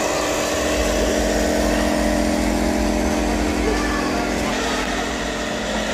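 A steady engine-like drone with several constant tones, over a background murmur of voices.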